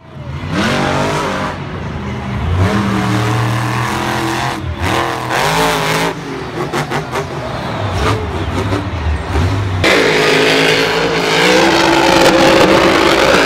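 Monster truck's supercharged V8 revving hard, its pitch climbing and dropping again and again, louder for the last few seconds.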